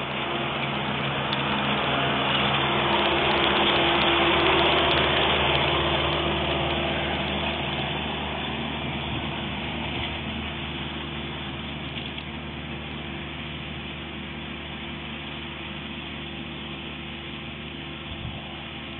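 Ransomes AR250 ride-on rotary mower running steadily with its decks cutting grass. It grows louder over the first few seconds, then slowly fades as the mower moves away.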